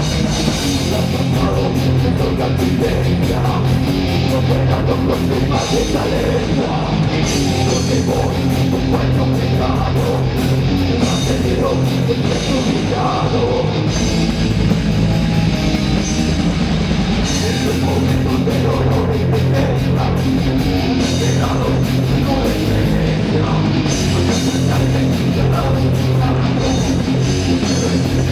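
Heavy metal band playing live: distorted electric guitars, bass guitar and a drum kit, loud and dense from start to end.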